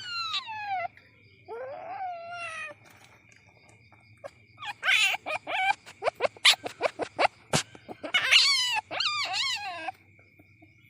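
Young palm civet (musang) kitten calling: repeated high cries that fall in pitch, with a rapid run of short clicking chirps in the middle and more falling cries near the end. A faint steady high tone sits underneath.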